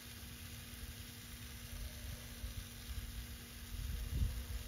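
Rain Jet No. 14 brass shrub spray sprinkler running, its low fan of water giving a soft, steady hiss. Underneath, a low rumble comes and goes and swells briefly near the end.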